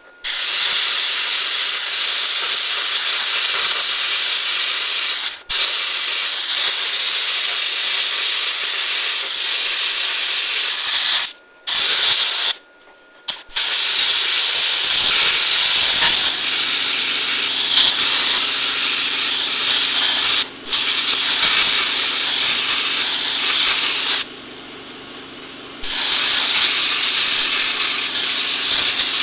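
Plasma cutter cutting through a steel truck frame rail: a loud, steady hiss that stops briefly a few times as the trigger is let off and the cut resumes.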